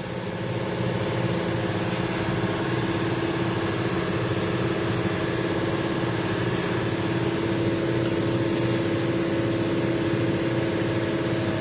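An engine idling steadily, with a strong constant hum and an even, repeating low pulse.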